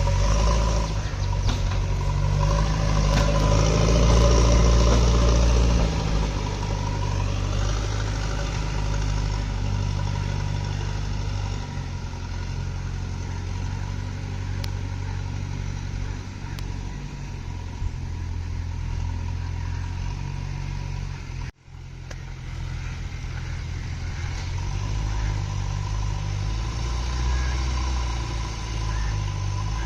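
JCB backhoe loader's diesel engine running steadily, working harder in the first few seconds and then settling to a lower, even drone. The sound cuts out for an instant about two-thirds of the way through, then carries on.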